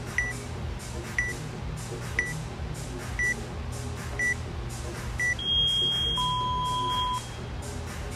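Gym countdown timer beeping: short high beeps once a second, then a longer, lower tone lasting about a second, six seconds in, that signals the start.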